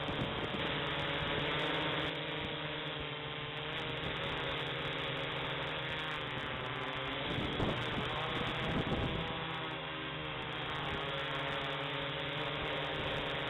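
Ideafly I-Fly4 quadcopter's motors and propellers whirring, heard close through its onboard camera, as a steady hum of several pitches. Around the middle the pitch wavers and swells briefly as the throttle changes.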